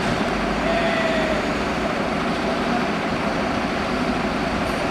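Fire engine running with a steady low rumble, mixed with street traffic noise.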